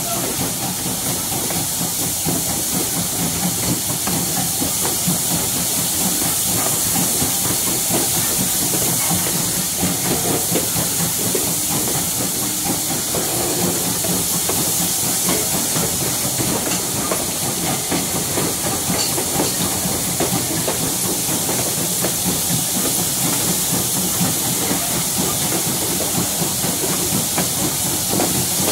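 Steam-hauled passenger train, ex-Norfolk and Western 475: a steady hiss over a low rumble.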